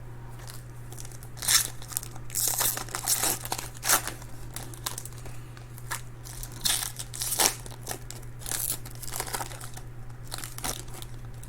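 Plastic wrapping on trading-card packaging crinkling and being torn open in a series of short rips, over a steady low electrical hum.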